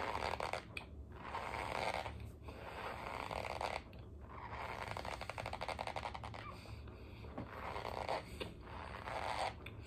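Close-up chewing of a mouthful of cornstarch, squeaky and crunching as the powder packs between the teeth, in several spells with short pauses.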